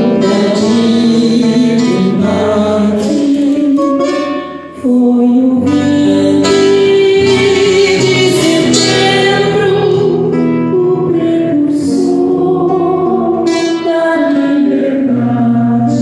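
A large crowd singing together to instrumental accompaniment, in long held notes, with a brief dip in level about four and a half seconds in.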